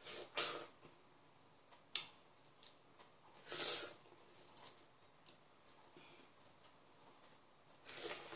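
Wet mouth sounds of eating fresh, juicy pineapple flesh straight from the fruit: slurping bites at the start, a few seconds in, and near the end, with soft chewing smacks and clicks in between.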